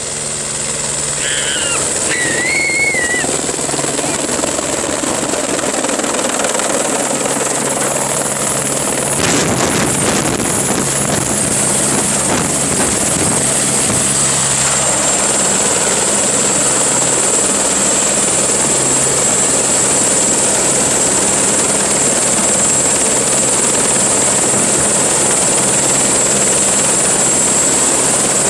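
Light turbine helicopter coming in low to land, then running on the ground with its main rotor turning: a steady rotor chop and engine noise with a high turbine whine. The sound grows louder over the first few seconds as it approaches, and the whine drops slightly in pitch about halfway through, after it has settled on the grass.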